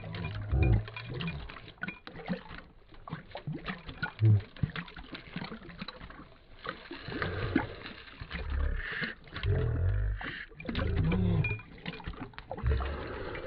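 Dog lapping water from a shallow bowl: irregular wet laps, splashes and tongue clicks, played back slowed down.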